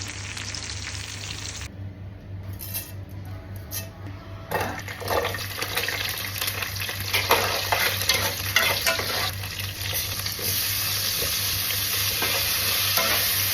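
Food frying in hot oil in a pan, with a steady sizzle and scattered clicks and scrapes of a utensil stirring. The sizzle drops away briefly a couple of seconds in, then comes back louder from about four and a half seconds on, with a low steady hum underneath.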